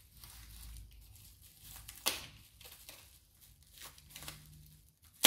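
A small wrapped package being torn and crinkled open by hand: rustling of its wrapping, with a few short tearing sounds, the strongest about two seconds in.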